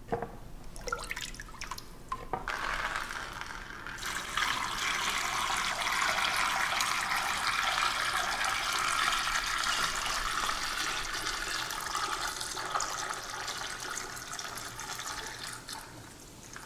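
Liquid sulfur solution pouring from a plastic pitcher through a plastic funnel into a plastic jerrycan: a steady splashing stream that sets in about four seconds in and tapers off near the end.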